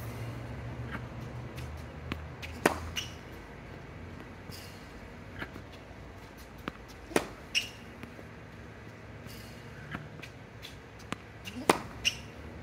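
Tennis ball impacts of racket hits and bounces during backhand practice on a hard court. There are three sharp pops about four and a half seconds apart, each followed quickly by a lighter one, with fainter knocks between.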